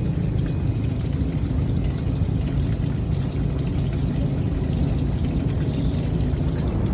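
Storm surf washing up the beach, a steady, even rush of water.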